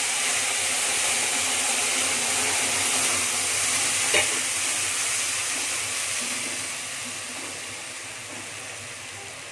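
Blended green chilli and coriander-leaf paste sizzling in hot oil in a karai, a loud spattering hiss that slowly fades as the wet paste cools the oil. One short knock about four seconds in.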